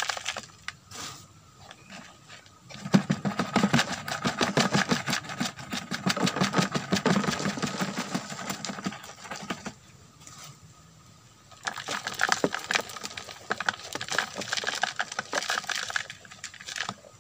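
Dry, crumbly goat manure poured from a plastic scoop through a metal funnel into a plastic jerry can: a rapid rattle of many small granules. It comes in two long spells, starting about three seconds in, with a short pause about ten seconds in.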